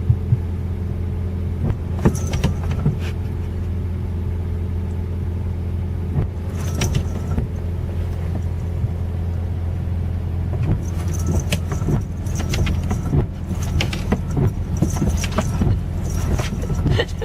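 Steady low rumble of a moving vehicle, with scattered clicks and light jingling over it, more of them in the second half.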